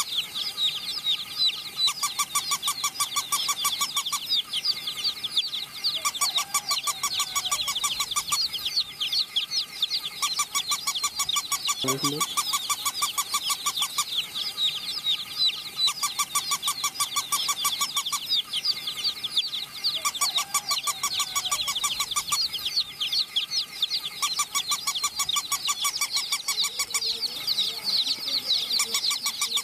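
Many domestic chicks peeping without a break, a dense stream of short, high, falling cheeps. Behind them a fast, regular clicking starts and stops every couple of seconds.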